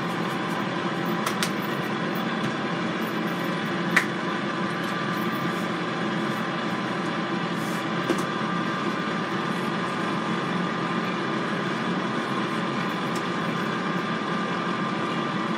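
Power XL air fryer running steadily mid-cook, its fan giving a constant mechanical hum. A sharp click comes about four seconds in and a smaller one about eight seconds in.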